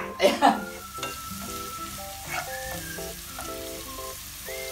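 Garlic and onion sizzling in hot oil in a nonstick frying pan, stirred with a wooden spatula.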